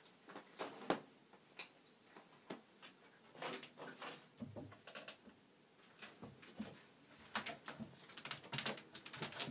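Cat rolling and squirming on a fabric cushion: scattered soft rustles and clicks, with a few duller knocks about halfway through and busier rustling near the end.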